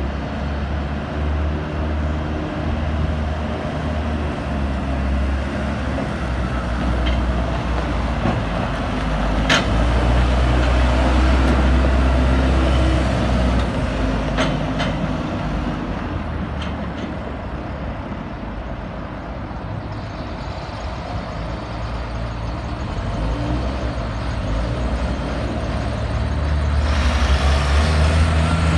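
2007 Lull 944E-42 telehandler's diesel engine running steadily as the machine drives by, loudest as it passes close about a third of the way in. Near the end a box truck's engine comes up loud as the truck pulls in close.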